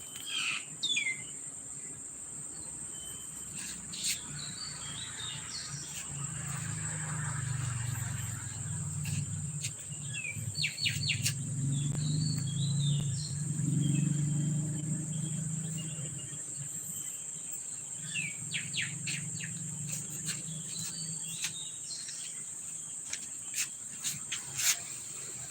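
Steady high-pitched insect drone with bursts of small bird chirps, and a low hum rising in the middle and fading out near the end.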